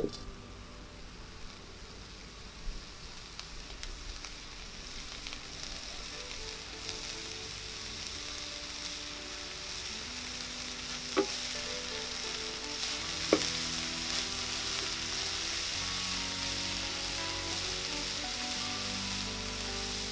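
Chopped cassia tora leaves and grated coconut sizzling as they fry in a wok over a wood fire; the sizzle grows steadily louder. Two sharp clicks stand out around the middle.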